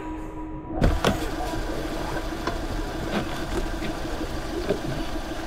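Car engine idling, heard from inside the cabin, with two sharp knocks about a second in.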